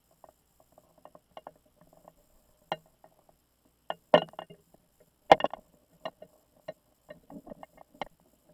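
Irregular clicks and knocks heard through a camera housing hanging under water on a tape measure, with two louder knocks about four and five seconds in.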